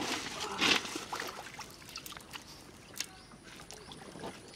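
A short splash of water in an aluminium bowl, then faint clicks and rustling as small fish are picked out of a wet cast net lying on gravel.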